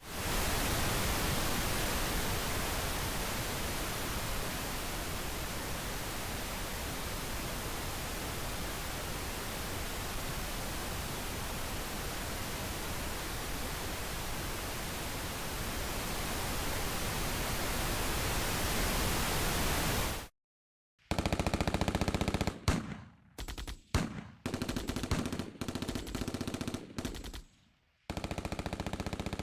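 Pink-noise speaker test signal: a steady, even hiss for about twenty seconds that cuts off suddenly. After a brief silence comes a rapid, irregular run of sharp bursts and short blasts.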